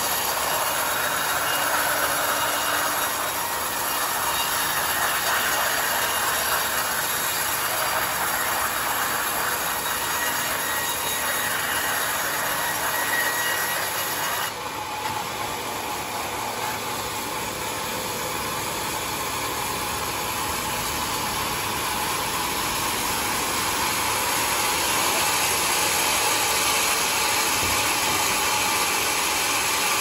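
Homemade band sawmill's blade running through a large mahogany log: a steady, loud hiss and whine of the saw in the wood. The sound changes abruptly about halfway through, then continues evenly.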